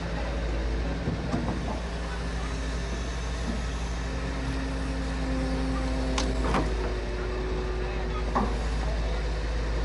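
Hitachi hydraulic excavator's diesel engine running steadily at work, with a deep rumble and a few short sharp sounds over it about midway and near the end.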